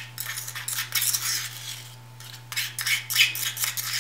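A small white plastic spoon stirring and scraping a gritty baking soda and milk paste around a small ceramic ramekin, in repeated strokes with a short pause about two seconds in. A steady low hum lies underneath.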